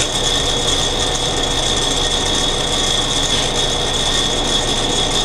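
Small metal lathe starting up suddenly and running, its chuck spinning a tap that cuts serrations into a bolt to make a hobbed extruder bolt: a steady rasping grind with a steady high whine over a low hum.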